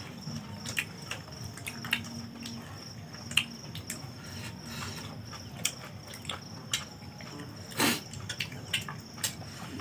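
Crickets chirping steadily, with scattered small clicks and clinks of hands eating from steel plates, and one short louder noise about eight seconds in.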